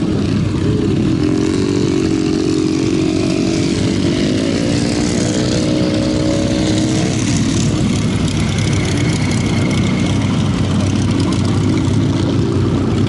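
Vintage motorcycle engines running in a starting line-up on the sand, a steady rumble with one engine revving up about four seconds in and dropping away at about seven seconds.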